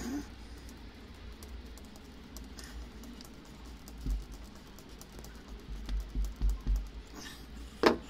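Screwdriver turning the screw of a worm-drive hose clamp on a plastic drain fitting, with a run of small clicks. Dull knocks from handling come about four seconds in and again around six to seven seconds, and a sharper click comes near the end.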